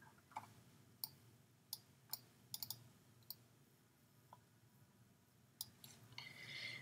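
Near silence with faint, scattered computer mouse clicks as an on-screen document is scrolled, including a quick run of three about two and a half seconds in and a last one near the end.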